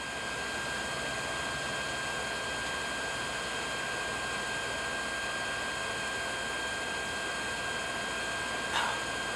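Forge air blower running steadily, an even rushing hiss with a thin high whine, feeding air to the fire to heat the steel for hardening.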